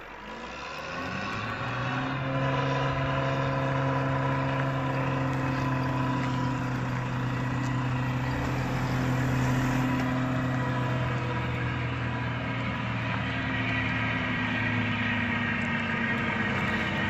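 MAN 22.190 truck's diesel engine running as the truck approaches at a steady speed; it grows louder over the first couple of seconds, then holds an even, unchanging pitch.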